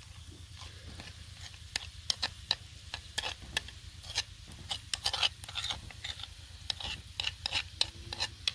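A spoon stirring okra and besan in a frying pan, clicking and scraping irregularly against the pan over a light sizzle.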